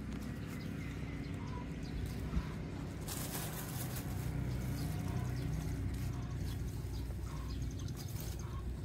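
Rural outdoor ambience: a low steady rumble with faint, scattered bird chirps, and a brief burst of rustling about three seconds in.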